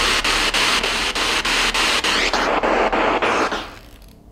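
Spirit box (radio ghost box) sweeping through stations: a loud hiss of radio static broken by a steady click about six times a second as it jumps from station to station, fading out after about three and a half seconds.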